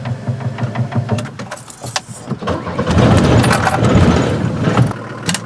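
Camper van's engine running, heard from inside the cab while driving, with a steady low rumble. It grows louder and fuller for a couple of seconds from about halfway, then eases off, with a few light clicks and rattles a little before that.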